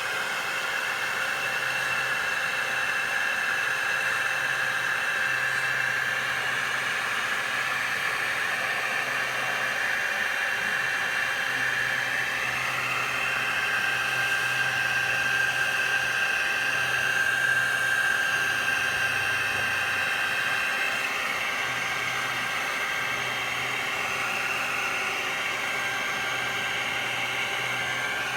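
Vacuum motor running steadily while bees are sucked up, with a high whine that wavers slightly in pitch.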